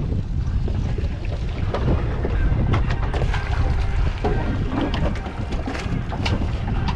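Wind buffeting the camera microphone on an open boat offshore, a steady low rumble, with scattered short splashes as a hooked mahi thrashes at the side of the boat.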